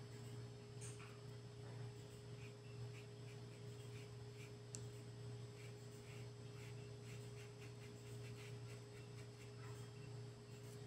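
Quiet room tone: a steady low hum with a constant higher tone, under faint, soft scratches of a flat paintbrush dabbing fabric paint onto cloth.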